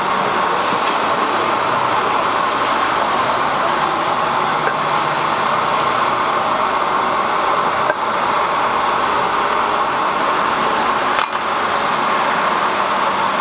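Steady roadside traffic noise, with a couple of light knocks about eight and eleven seconds in.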